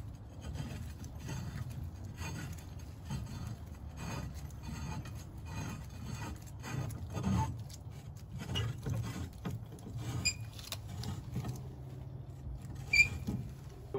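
Metal clamps and pieces of angle aluminum being handled and fitted against a boat transom: scraping, rubbing and light knocks, with two ringing metallic clinks, one about ten seconds in and a sharper one near the end.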